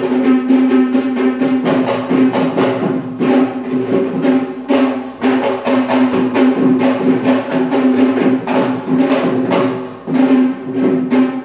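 Kandyan drums (geta bera) beaten in a fast, dense rhythm for a wes dance, with crisp jingling strokes above them, over a steady held tone that runs without a break.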